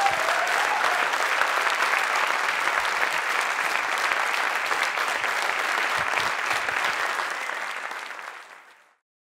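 An audience applauding steadily, a dense patter of many hands clapping, which fades out near the end.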